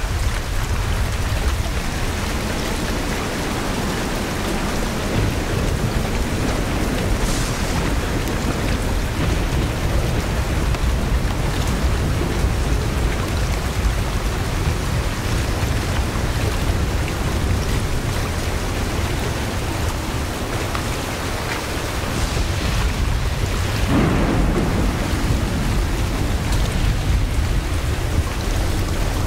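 Steady heavy rain falling on water and foliage, with a deep low rumble of thunder underneath and a couple of brief swells.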